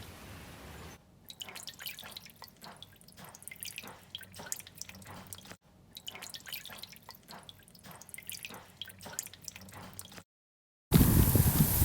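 Water dripping: single drops falling at irregular intervals, a few each second, after a steady hiss in the first second. Near the end, after a short silence, a much louder rustling starts.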